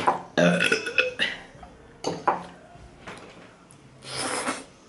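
Spaghetti being eaten close to the microphone: a short voiced sound at the start and a few small mouth noises, then a noisy slurp of noodles lasting about half a second near the end.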